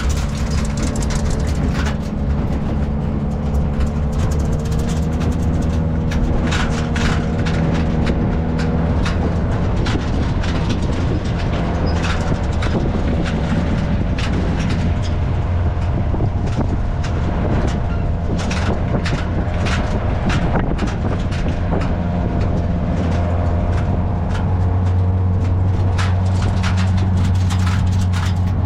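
A motor vehicle's engine running steadily, with frequent knocks and rattles over it, as on a rough track; it grows a little louder near the end.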